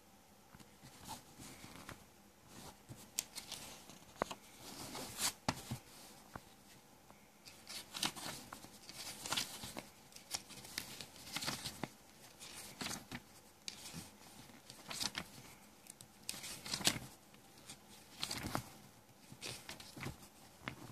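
Pages of a small paper booklet being turned by hand: irregular rustles and flicks of paper with short pauses between them.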